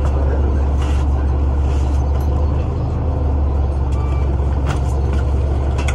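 Steady low drone of a New Flyer Xcelsior city bus under way, heard from inside the passenger cabin, with a few faint rattles.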